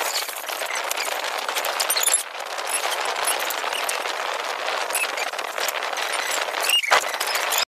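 Bubble wrap and plastic packaging crinkling and crackling as the food processor's parts are handled. It cuts off suddenly near the end.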